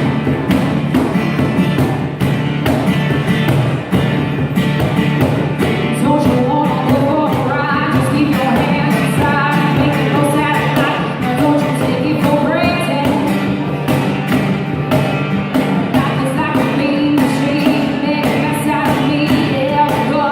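Live rock band playing a pop-rock song, with drums, bass and guitars; a lead vocal comes in about six seconds in.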